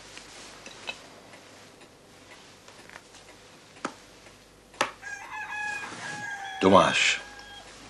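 A rooster crowing, one long call in the last few seconds that swells to its loudest just before the end. Earlier there are a few sharp clinks of cutlery on plates.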